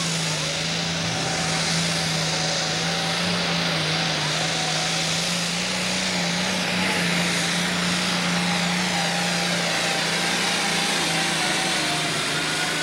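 International super stock pulling tractor's turbocharged diesel engine running flat out under load as it pulls the sled, a loud steady drone held at one pitch.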